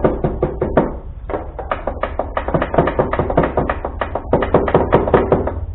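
A metal tool tapping rapidly and repeatedly on a riding tractor's starter solenoid, several taps a second with two brief pauses. It is an attempt to free a solenoid that clicks but does not connect the starter.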